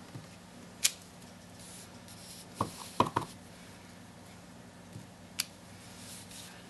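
Clear acrylic stamp block lifted off the card and set down on the craft table: a sharp click about a second in, a quick cluster of hard knocks around three seconds in, and another click near the end, over a faint steady low hum.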